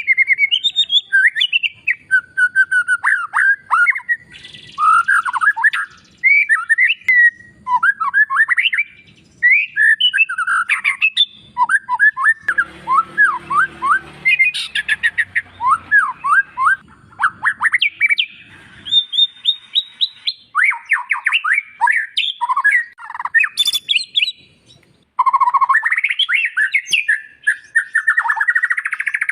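White-rumped shama singing a loud, fast, varied song of quick downward-sliding whistles mixed with harsh, scratchy chatter notes.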